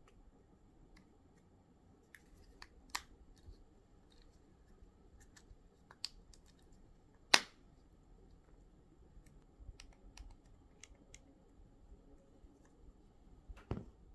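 Scattered small clicks and taps of a Hyundai smart key fob's plastic case being handled during a battery change, one sharper click about halfway through.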